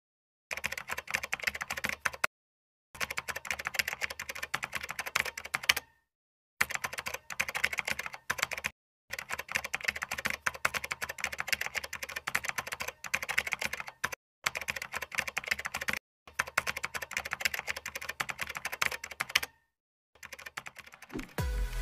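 Computer keyboard typing sound effect: rapid key clicks in runs of a few seconds each, broken by several short, completely silent gaps, as text types out on screen. Music starts just at the end.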